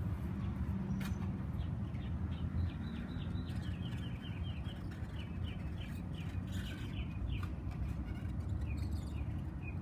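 A bird chirping in a quick run of short, high notes, about three or four a second, starting a second or so in. Under it runs a steady low outdoor rumble.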